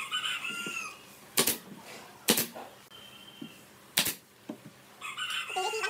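Pneumatic brad nailer firing three sharp shots, driving nails into a wooden crossbar of a rocking chair. A rooster crows at the start and again near the end.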